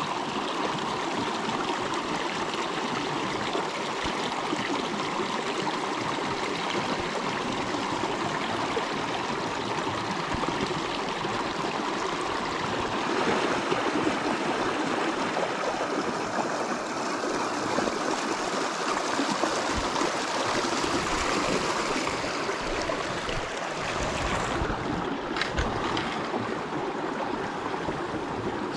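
Shallow creek water rushing and babbling over rocks, steady throughout. A few light clicks near the end.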